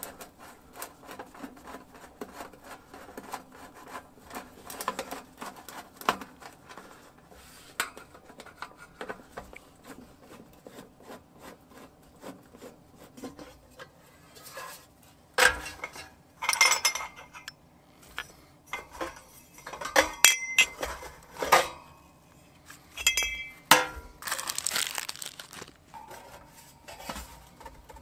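Metal clanking and clinking as aluminium stove-pipe sections and flag-pole fittings are handled and lifted out of a metal roasting pan, part of a homemade tent stove being unpacked. Light handling clicks come first; the loud clanks come in clusters about halfway through.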